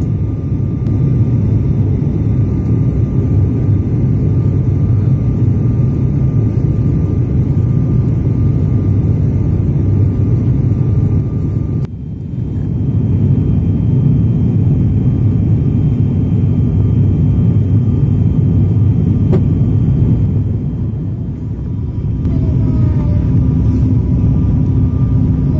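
Airliner cabin noise heard from a passenger seat: a steady low rumble of engines and airflow, dipping briefly about halfway through and again near the end.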